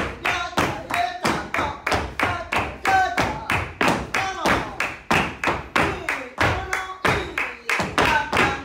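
Flamenco footwork: dance shoes stamping heel and toe on the floor in a quick bulerías rhythm in twelve-beat time, about four or five strikes a second. A flamenco singing voice wavers behind the strikes.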